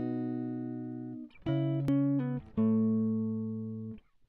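Intro music: a slow run of chords, each struck sharply and left to ring and fade, with a brief break near the end.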